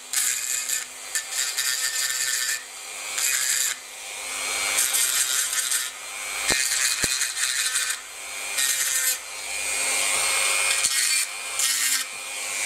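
Dremel rotary tool grinding away the small pin tabs that hold a side blade onto a diecast model car body. Its high-pitched whine runs on while the grinding noise comes and goes in repeated short bursts as the bit is pressed to the pins and eased off.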